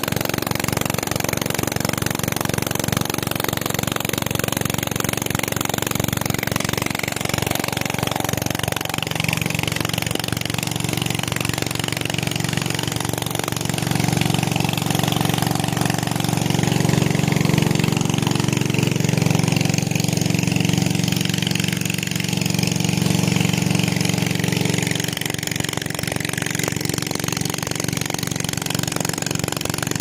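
Small engine driving a centrifugal irrigation water pump, running steadily, with the rush of pumped water. It grows somewhat louder for about ten seconds midway.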